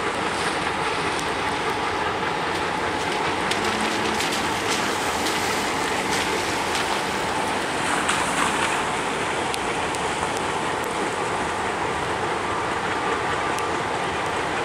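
ALCO diesel locomotives rolling past on a steel trestle, their engines running steadily, over a steady hiss.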